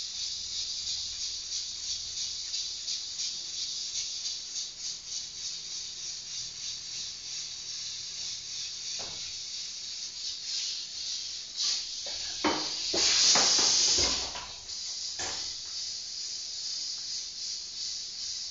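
Chopped onion and garlic sizzling in an aluminium frying pan, with a few metal knocks and scrapes now and then and a louder burst of hiss about 13 seconds in.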